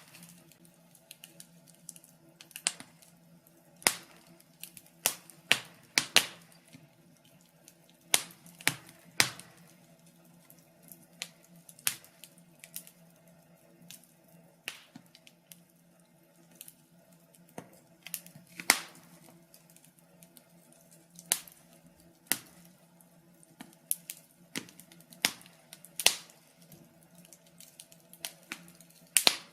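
Wood fire crackling: irregular sharp snaps and pops, the louder ones every few seconds, over a faint steady low hum.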